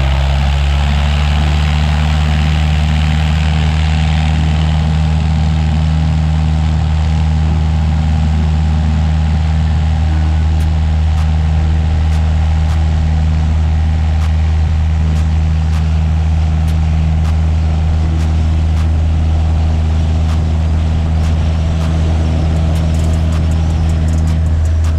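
Cessna 172's piston engine and propeller running steadily at full takeoff power during the takeoff roll, a loud, even drone with a strong low hum.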